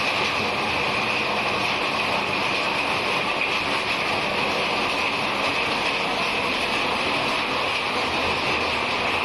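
Heavy rain pouring down in strong wind: a steady, even rush of noise.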